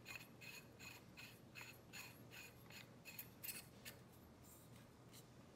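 Faint, regular scratchy clicks, about three a second, from a paintball barrel being screwed into the marker's threads. They stop about four seconds in, once the barrel is seated.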